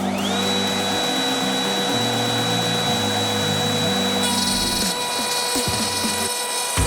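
A power tool's electric motor spins up quickly to a steady high whine and runs on. About four seconds in, its sound turns rougher and fuller. Background music plays underneath.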